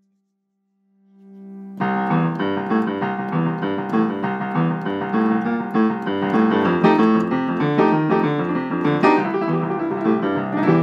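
Piano playing on a digital keyboard. It opens in near silence and a low held note swells in, then about two seconds in a lively passage of many quick notes and chords begins and carries on.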